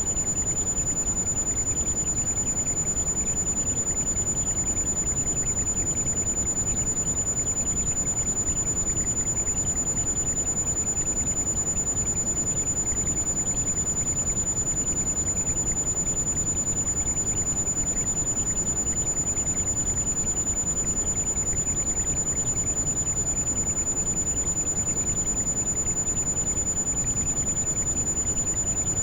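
Heavy rain falling in a steady, even wash, with a constant high-pitched tone held unchanged over it: a tinnitus-style ringing tone mixed with the rain for tinnitus masking.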